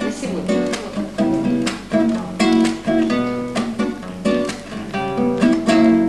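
Solo acoustic guitar playing the instrumental intro of a song, strummed chords and picked notes ringing over one another.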